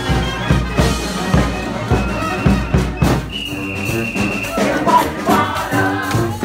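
Live street-band music: wind instruments playing over repeated drum beats, with a long high note held for about a second near the middle.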